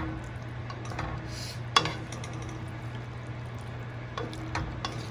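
Wooden spatula stirring thick, creamy pasta in a nonstick skillet: scraping, with scattered knocks against the pan and one sharp clack about two seconds in, over a steady low hum.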